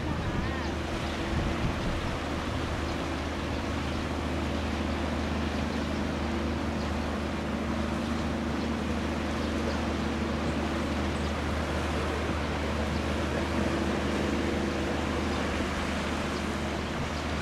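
A steady low engine drone under a constant rushing noise.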